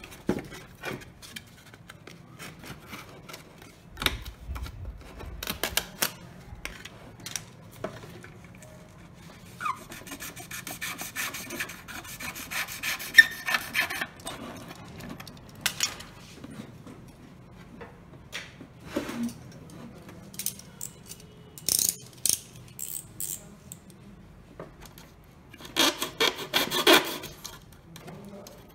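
Hobby knife cutting through foam board in two spells of rapid rasping strokes, one about a third of the way in and one near the end, with scattered clicks and taps of the foam pieces being handled in between.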